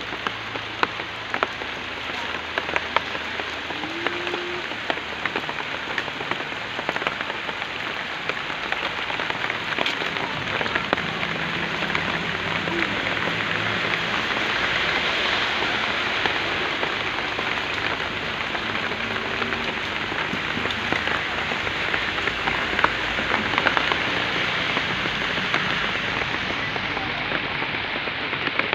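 Steady rain falling, with many scattered sharp drop ticks on top of an even hiss.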